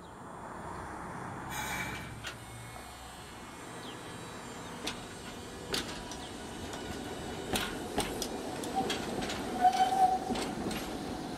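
Hiroshima Electric Railway 800-series streetcar running along its track: a steady rumble of wheels and motor with scattered sharp clacks of the wheels on the rails. A short squealing tone about nine seconds in is the loudest moment.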